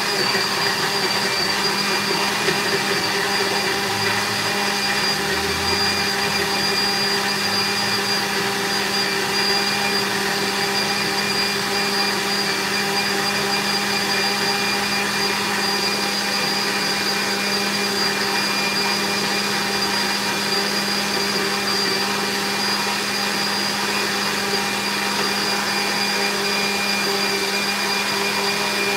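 Countertop electric blender running at a steady speed with a constant motor whine, blending pineapple with water into a thick juice.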